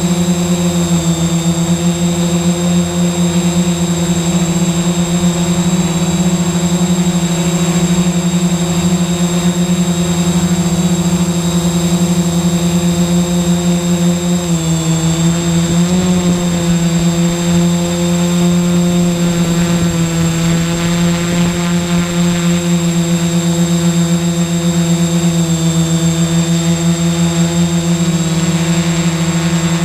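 Quadcopter's electric motors and propellers humming steadily, heard close up from the GoPro mounted on the craft, with a thin high whine above the hum. About halfway through the pitch dips briefly and then rises again.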